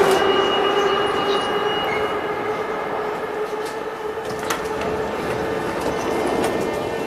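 Moscow Metro 81-717.5/714.5 train braking to a stop at a platform: the running noise fades steadily, with a thin high squeal for the first couple of seconds. A steady hum from the train carries on once it has stopped.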